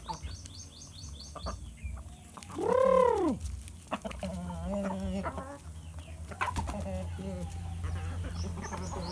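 Shamo-type game chickens clucking, with one loud drawn-out squawk about three seconds in that rises and then falls in pitch. Shorter clucks follow, and a quick run of high chirps comes near the start.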